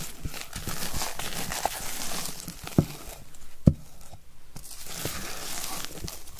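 Silicone spatula folding thick cocoa sponge-cake batter in a glass bowl, the blade scraping and sliding through the batter and along the glass. Two sharp knocks come about a second apart in the middle.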